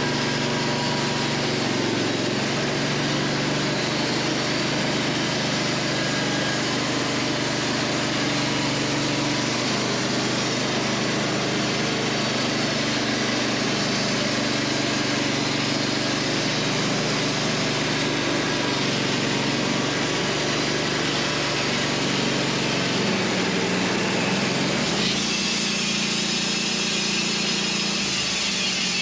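Wood-Mizer LT15 portable band sawmill running steadily, sawing a hard maple log, with its engine and blade making a constant hum and hiss. About 25 seconds in the sound changes and the engine note goes a little higher.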